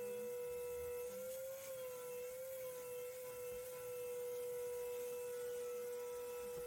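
Vacuum cleaner motor running steadily with a high, even whine that wavers slightly in pitch, over a hiss of rushing air.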